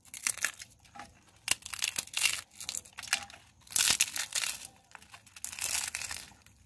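Crisp fried fuchka (pani puri) shells crushed by hand into mashed potato on a steel plate, crunching and crackling in irregular bouts as the shells break up for churmur.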